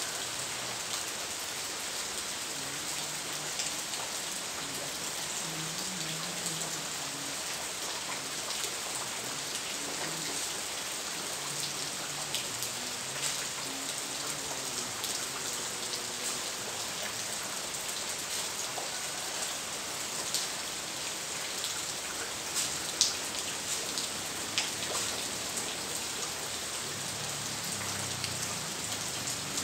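Steady rain falling, an even hiss with scattered drop clicks and a few sharper taps, the loudest about 23 seconds in.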